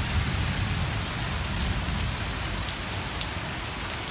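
Steady thunderstorm rain falling, a continuous hiss with a low rumble underneath and a few sharp drop taps.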